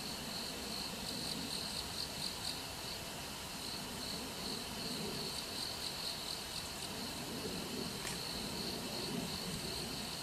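Insects chirping in a steady high trill that pulses in strength.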